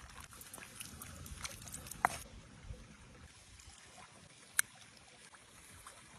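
Faint light pattering of shredded cheese being scattered by hand onto grilled eggplant slices, lasting about two seconds and then giving way to a low steady hiss. Two sharp clicks come through, about two and about four and a half seconds in.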